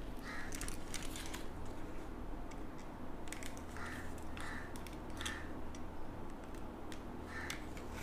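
Small utility knife blade scraping and nicking the bark off the stem of a guava cutting: faint, short, irregular scrapes and clicks, a few seconds apart at times.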